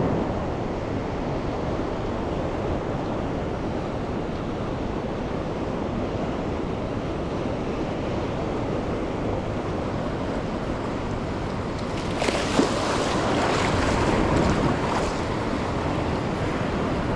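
Ocean surf washing onto the beach, a steady rush with wind buffeting the microphone; a louder wave washes in about twelve seconds in.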